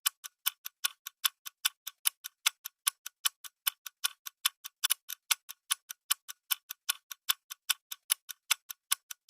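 Clock-ticking sound effect of a quiz countdown timer: even, sharp ticks, about five a second, counting down the guessing time.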